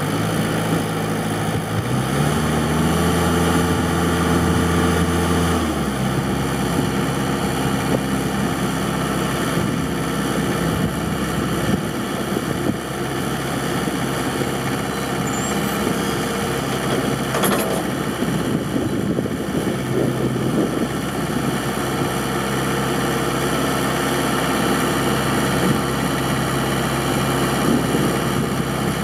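Branson 4720 tractor's diesel engine running just after start-up. Its revs rise about 2 seconds in, hold, and fall back to a steady run about 6 seconds in.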